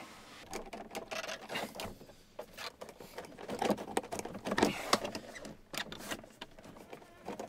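Hands working at the plastic trim of a car's center console: a run of irregular clicks, knocks and scraping, loudest about four and a half seconds in.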